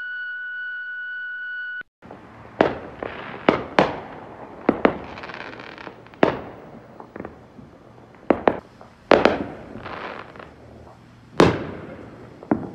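A voicemail beep, one steady tone held for about two seconds. Then aerial fireworks: about a dozen sharp bangs at uneven intervals, each trailing off, with crackling between and the loudest bang near the end.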